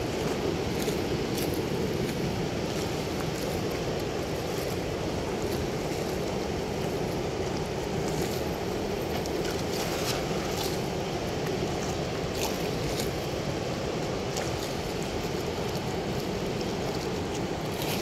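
Steady rush of water pouring through a weir's sluice gate, with a few faint light clicks scattered through.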